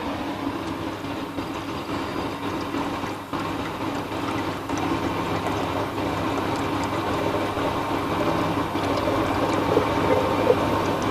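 Electric blender running steadily, grinding biscuits with sugar, melted butter and milk into a crumb base.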